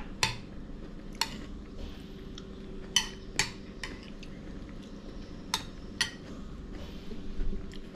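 Metal cutlery clinking against a plate while someone eats: about six sharp clinks, irregularly spaced.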